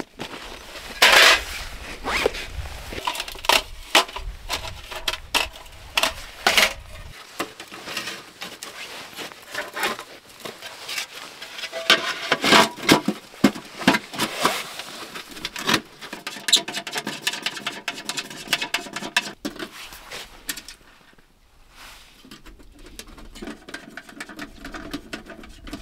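Folding sheet-metal wood stove being unpacked and assembled: a run of light metal clanks, clicks and scrapes as the panels are slotted together, thinning out after about sixteen seconds.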